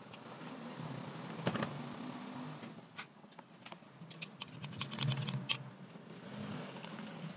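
Whisk stirring in a steel saucepan of milk, then a metal spoon clicking and scraping against a glass bowl as a mixture is poured out of it, with a quick run of sharp clicks near the middle and end.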